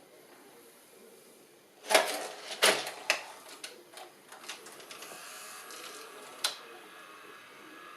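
Mitsubishi M1000 S-VHS video recorder's tape mechanism working: two clunks and a run of clicks, then a steady motor whir with a faint whine.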